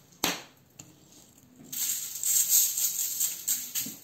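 Salt and pepper shaken from a shaker onto a salmon fillet on aluminium foil: a rapid rhythmic rattle of grains pattering on the foil, starting about two seconds in and lasting about two seconds, after a single sharp click near the start.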